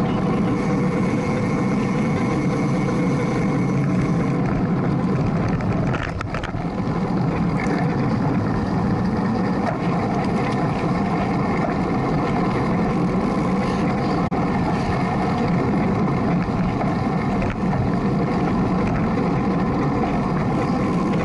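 Wind rushing over the microphone of a handlebar-mounted camera on a road bike racing at about 20 to 28 mph: a steady low rumble that dips briefly about six seconds in.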